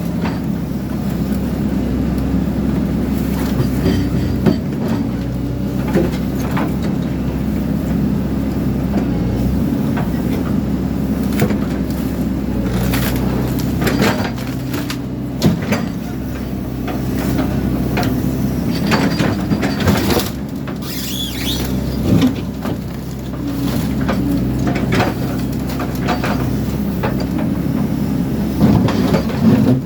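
Excavator diesel engine running steadily under load, with frequent irregular clanks, knocks and scraping as the machine tears at a metal hot water system.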